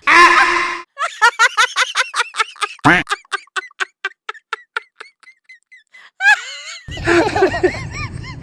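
A quick run of short, high squeaks, several a second, fading away over about four seconds. A voice-like sound follows near the end.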